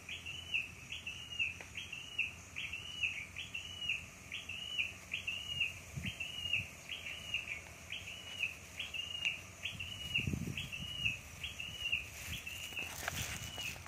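A bird calling the same short note over and over, about twice a second, very evenly. Water splashes and sloshes around a wader in the last few seconds.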